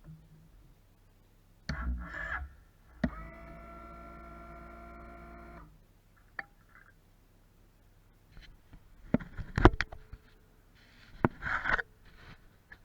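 A small electric motor on a 2013 Suzuki V-Strom 650 whines steadily for about three seconds after a sharp click, then cuts off, and the engine does not fire. Scattered clicks and knocks come before and after it.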